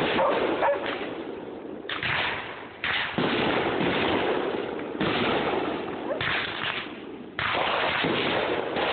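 Fireworks from a small electrically fired show going off in quick succession through a phone's microphone. Five sudden bangs come about two, three, five, six and seven and a half seconds in, each followed by a noisy rush that carries on until the next.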